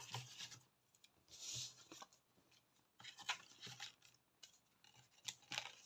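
Faint, scattered rustles of paper and card being handled and slid across a wooden tabletop, a few brief scrapes a second or so apart.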